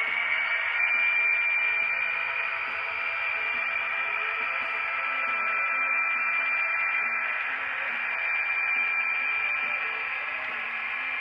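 Model train rolling stock running past on the layout track: a steady whirring rolling noise with a high thin whine held throughout.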